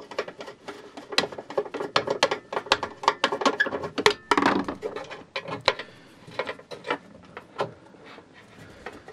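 Rapid clicks, knocks and rattles of a small electric motor being handled against the bandsaw's metal frame during dismantling, with a scraping rub about four seconds in. The taps grow fewer and fainter over the last few seconds.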